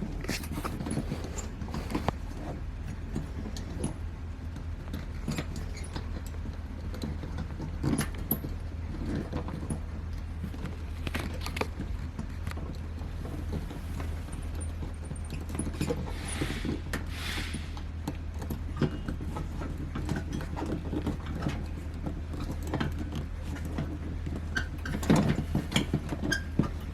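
Handling noise from working a neon tube's rubber electrode cap back over the electrode and high-voltage wire: small clicks, taps and rustles, with a brief scraping rustle about halfway through, over a steady low hum.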